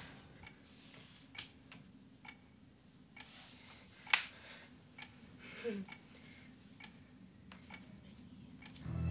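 Faint, evenly spaced ticks about once a second, like a ticking clock, over quiet room tone; one tick about four seconds in is louder. Soft hissy breaths and a brief falling squeak come a little past halfway.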